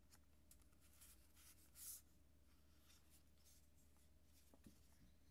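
Faint rustling and sliding of paper sticker sheets being handled on a desk, loudest about two seconds in, with a small tap near the end.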